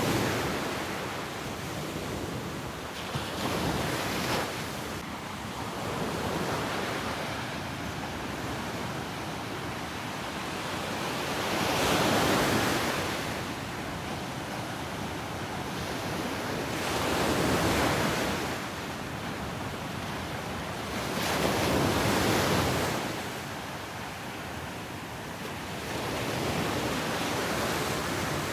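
Ocean surf breaking on a beach: a steady wash of noise that swells and fades as each wave comes in, with the louder waves about every five seconds.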